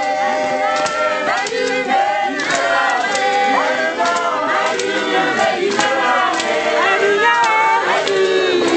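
Choral music: several voices singing together, with percussive strokes at intervals.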